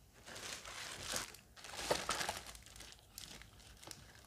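Crumpled paper packing being squashed and handled, crackling loudest about two seconds in. Lighter rustling of a clear plastic bag follows near the end.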